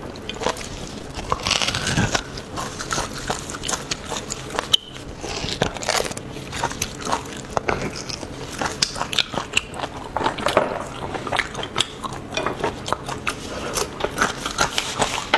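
A person biting, chewing and gnawing on a piece of beef bone with marrow, close to the microphone: many irregular sharp clicks and wet mouth sounds.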